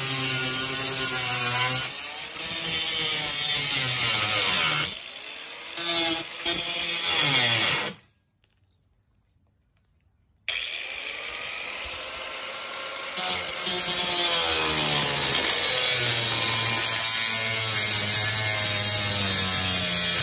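Ryobi corded angle grinder with a cut-off wheel cutting through the frame rail of a sunroof glass panel. The motor's pitch sags and recovers again and again as the wheel bites into the rail. The sound drops to near silence for about two seconds around eight seconds in, then the grinder runs and cuts again.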